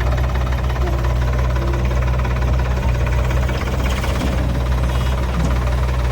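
Diesel engine of a tractor or backhoe loader running steadily with an even, unchanging note.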